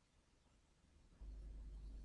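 Near silence, with a low steady hum that comes in abruptly a little over a second in.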